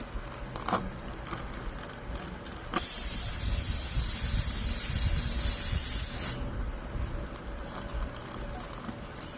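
Air hissing out of a punctured tire through the nail hole while it is being reamed for a plug. It is a loud, steady hiss that starts about three seconds in, lasts about three and a half seconds and stops abruptly.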